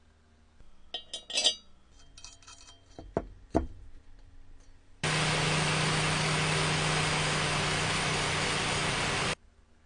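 Light metallic clinks and rattles, then the restored coffee grinder's motor runs steadily with a low hum for about four seconds and cuts off suddenly.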